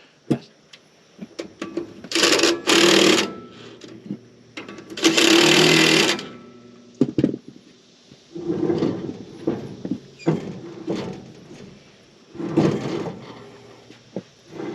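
Workshop tool noise while bulldozer shims are cleaned of old paint and fitted: a few short bursts of rushing noise, the longest about five seconds in, among sharp knocks of metal parts.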